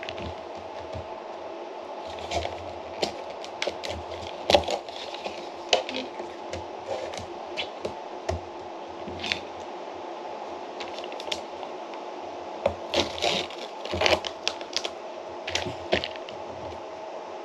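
Scattered light clicks and short rustles of a plastic yogurt tub and pouch being handled and opened, busiest in the last few seconds, over a steady low hum.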